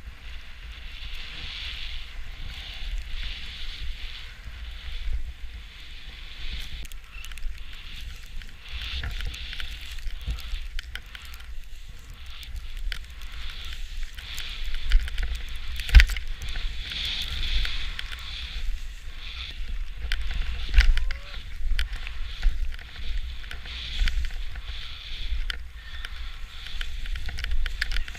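Skis swishing through deep powder snow, the hiss swelling and fading about once a second with the turns, over a low wind rumble on the body-worn camera's microphone. Scattered clicks, and one sharp knock a little past halfway that is the loudest sound.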